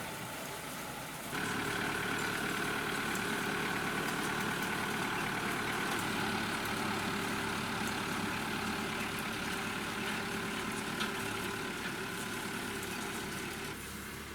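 A motor running steadily with an even hum. It starts abruptly about a second in and stops shortly before the end.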